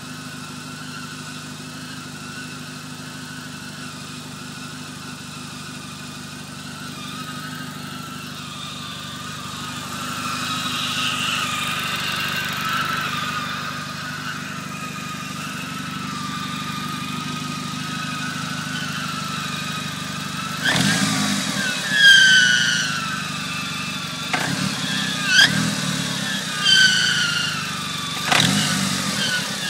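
Mitsubishi 4G63T turbocharged inline-four idling with a steady high whine over it. About twenty seconds in the throttle is blipped six or seven times, each rev bringing a whine that sweeps up in pitch. The owner takes the noise for a sign of something wrong and costly.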